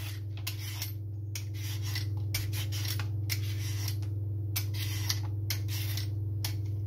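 Speed peeler scraping strips of skin off a raw butternut squash in quick repeated strokes, about three a second, over a steady low hum.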